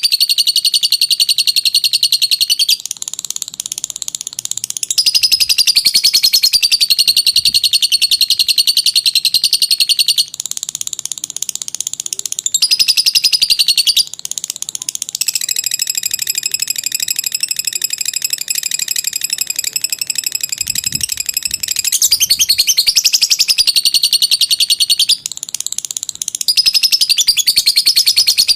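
Lovebird giving its long 'ngekek' song: a continuous, rapid, high-pitched chattering trill that runs without a break, shifting in pitch and texture every few seconds.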